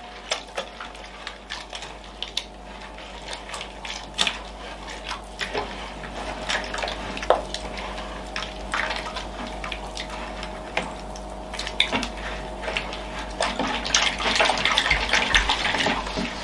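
A hand mixing water, salt and wheat flour into a wet dough in a mixing bowl: irregular wet squelches and smacks with small knocks against the bowl, growing busier toward the end.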